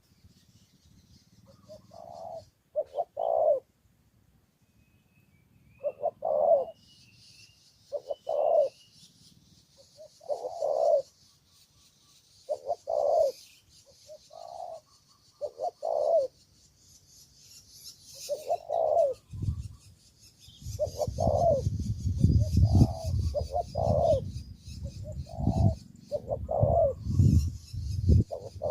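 Spotted dove cooing: a string of short, low coos repeated every one to two seconds. About two-thirds of the way in, a low rumbling noise starts up under the coos.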